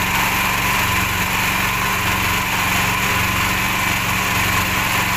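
The small wooden fishing boat's engine runs steadily while under way, with the rush of wind and water passing the hull.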